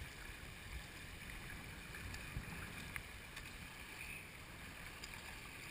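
Steady rush of shallow river water running over riffles around an inflatable kayak, with a few light ticks.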